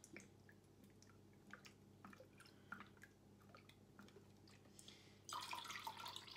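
Lemon juice dripping faintly from a bottle into a plastic measuring cup, then about five seconds in poured from the cup in a stream, splashing into a bowl of soy sauce for about a second.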